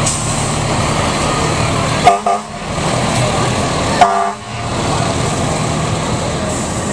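Fire truck horn sounding two short blasts about two seconds apart, over the steady running of the truck's engine as it drives off.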